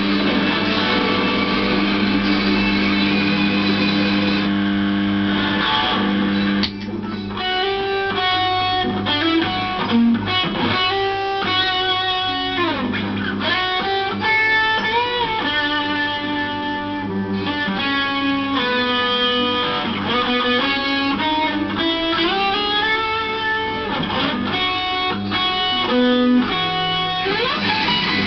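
Electric guitar music: a thick sustained chord for about the first six seconds, then a melodic lead line of single notes with string bends.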